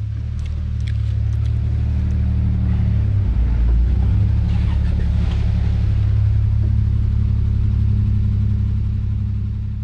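A 1965 Ford F100 pickup's engine running on the road, a steady low rumble that changes pitch about three to four seconds in and fades away near the end.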